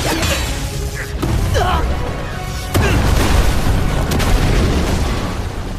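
Animated-battle soundtrack: music mixed with booming explosion and fire sound effects over a deep, continuous rumble, stepping up suddenly in loudness about halfway through.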